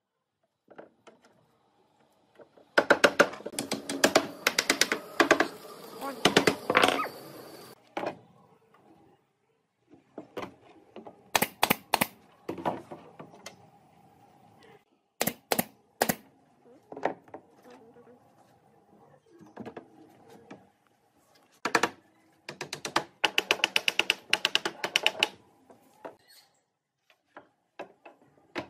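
Bursts of rapid, sharp clicking and tapping on wood, with a few separate knocks between them, typical of hand work in a woodworking shop.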